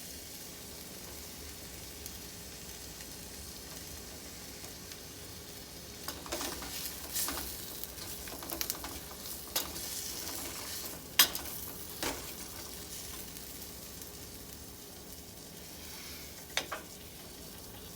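Onions sizzling as they fry in a pan while being caramelized. A utensil stirs and scrapes against the pan in the middle stretch, with a sharp knock about eleven seconds in and another click near the end.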